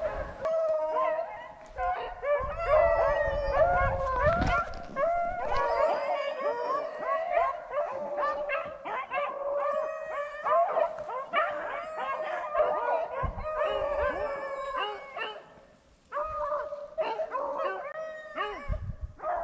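A pack of rabbit hounds baying and howling together, many overlapping voices in steady chorus as they run a jumped rabbit's scent trail. The chorus slackens briefly near the end, then picks up again. Low rumbles of wind on the microphone come and go.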